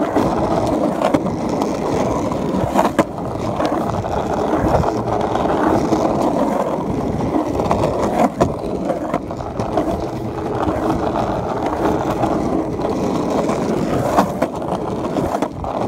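Skateboard wheels rolling steadily over pavement, a continuous rumbling roll with a few sharp clicks now and then.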